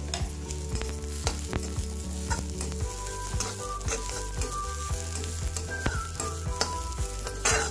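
Chopped onion, green chillies, ginger and coconut pieces sizzling in hot oil in a kadai while a flat spatula stirs and scrapes them, with short clicks and scrapes of the spatula against the pan.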